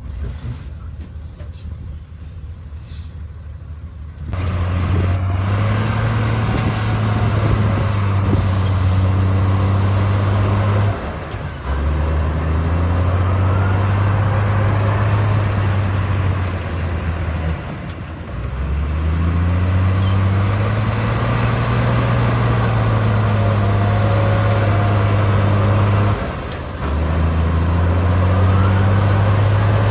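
Komatsu crawler bulldozer's diesel engine working under load: quieter at first, it comes up loud about four seconds in, and three times its low note sags and then climbs back as the machine pushes and eases off.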